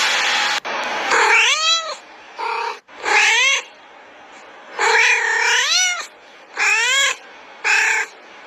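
Tabby cat meowing six times: drawn-out meows that rise and fall in pitch, some long and some short, with brief gaps between them. Just before the first meow, a steady background noise cuts off abruptly.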